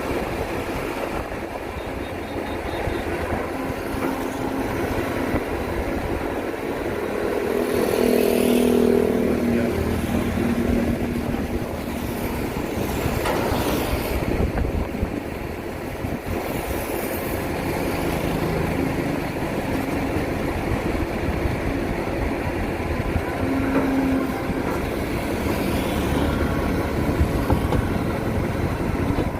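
Excavator's diesel engine running steadily as the machine digs, growing louder briefly about eight seconds in.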